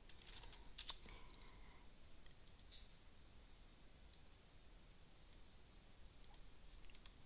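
Faint clicks of a computer keyboard and mouse over near-silent room tone: a few keystrokes in the first second or so, then scattered lighter clicks.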